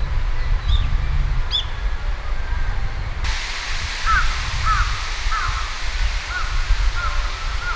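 Eurasian coots calling: two short high calls, then from about three seconds in a run of short, clipped calls repeated roughly every half-second. A steady low rumble runs underneath.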